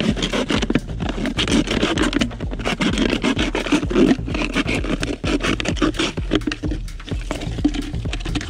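A knife sawing through a thin plastic drink bottle, making rapid, irregular scraping strokes.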